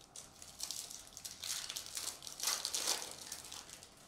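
Wrapper of a Topps baseball card pack being torn open and crinkled in the hands: a run of crackling rustles, loudest about two and a half seconds in.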